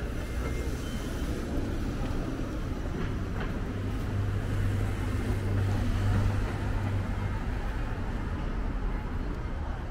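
City street traffic: the low hum of a car's engine swells for a few seconds in the middle and fades again, over a steady low rumble of street noise.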